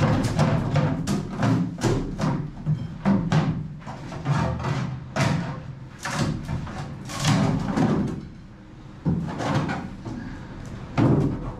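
Irregular knocks and thumps of rotten wooden stringers being pried, broken and pulled out of a fiberglass boat hull, with background music under them.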